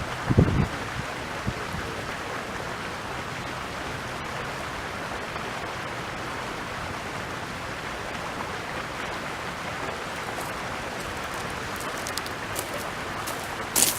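Flowing stream water: a steady rushing hiss. A short low thump comes right at the start, and a few faint clicks come near the end.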